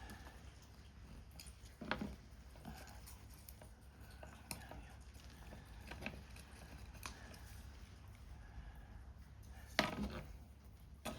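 Paper-craft handwork: scattered small clicks and paper rustles as paper parts are handled and cut, the loudest a little before the end, over a faint steady wash of rain.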